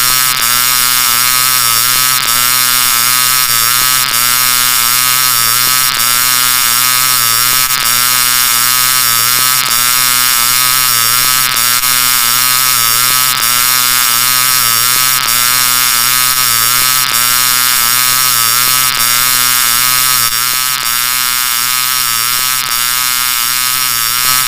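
Electronically processed 'G Major' sound-effect edit, with stacked pitch-shifted copies layered into a chord and helium voice-changer effects. It plays as a dense, steady pitched drone whose wobbling pattern repeats about every two seconds, a loop.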